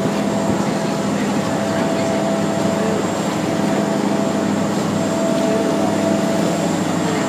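Passenger ferry's engine running steadily under way, a constant hum with a few held tones, over a steady rushing noise.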